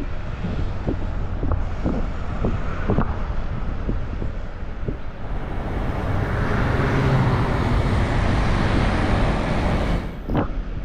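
Road traffic noise: a motor vehicle passing close by, its noise swelling from about halfway and cutting off near the end. Underneath is a steady low wind rumble on the microphone from the moving bicycle.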